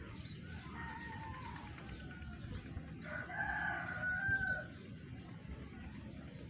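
A rooster crowing twice, a faint crow about half a second in and a louder, longer crow about three seconds in.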